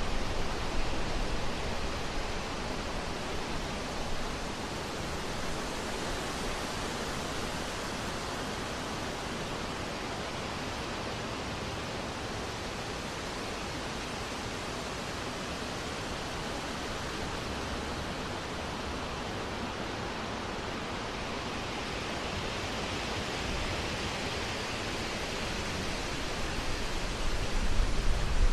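Steady rushing of wind through trees, swelling louder with more low rumble near the end.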